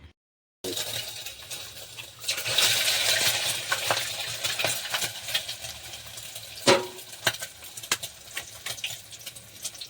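A spoon clinking and scraping against a cooking pan as egg rice is stirred, with a hiss for a second or two early on and repeated sharp knocks, the loudest about two-thirds of the way through.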